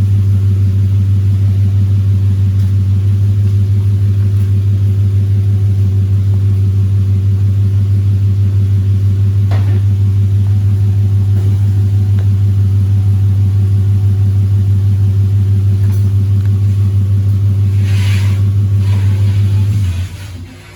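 Car engine idling steadily with a deep, evenly pulsing exhaust rumble, then shut off about 20 seconds in.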